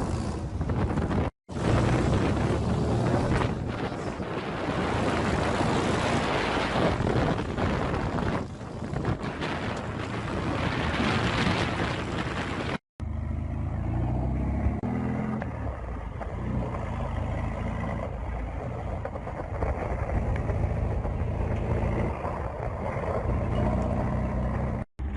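Wind rushing on the microphone over an engine running, heard in several clips cut together. About halfway through the hiss drops away and a low engine rumble takes over.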